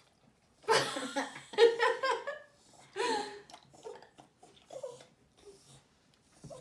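People laughing: a loud burst of laughter about a second in, another shortly after three seconds, then softer chuckles.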